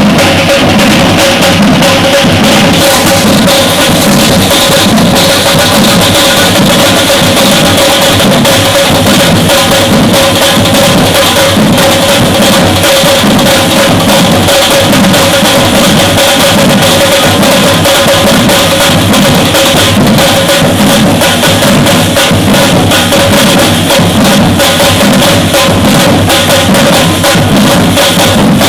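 Batucada drum ensemble playing a dense, continuous groove of bass drums and snare drums, very loud, with no break.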